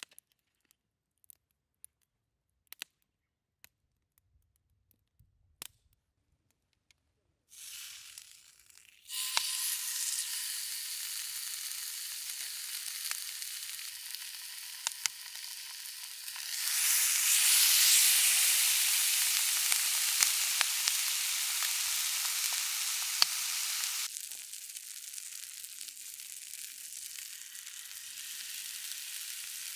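Salt-koji-marinated meat sizzling in a hot Turk iron frying pan. A few faint clicks, then the sizzle starts about a quarter of the way in, grows louder around the middle and settles again.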